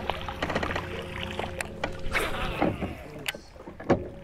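Steady hum of a boat's electric trolling motor, with the whirring and ticking of a baitcasting reel being cranked and a few sharp clicks, the loudest near the end.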